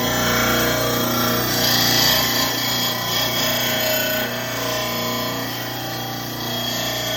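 VEVOR mower blade sharpener's spinning grinding stone grinding the edge of a dull steel lawn mower blade as it is slid forward in the guide groove: a steady harsh grinding over the sharpener motor's hum. The grinding starts abruptly and is loudest about two seconds in.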